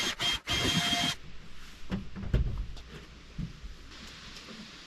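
A power tool whirs briefly and cuts off abruptly about a second in, followed by light knocks and low thumps of cabinet parts being handled.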